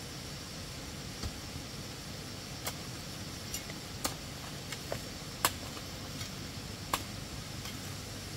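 A hoe chopping into soil and knocking against stones: about ten short, sharp knocks at irregular intervals of roughly half a second to a second, the loudest about five and a half seconds in, over a steady background hiss.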